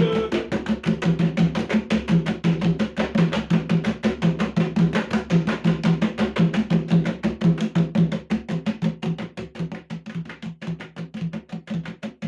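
Music: a fast, even drum and percussion beat over a pulsing bass line, with no singing.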